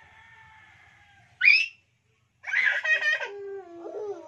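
Young children's wordless voices: a soft held hum, a short high squeal about a second and a half in, then a loud wavering cry that slides down in pitch.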